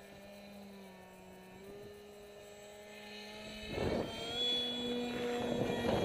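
Electric motor and 6x4 propeller of an RC foam model jet whining in flight. About four seconds in, a gust of wind buffets the microphone, and the whine steps up in pitch and gets louder as the plane comes close overhead.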